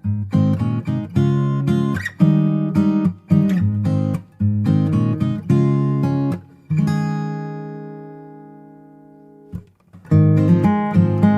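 Background music: acoustic guitar strumming chords in short phrases. Past the middle, one chord is left ringing and slowly fades; then the strumming starts again.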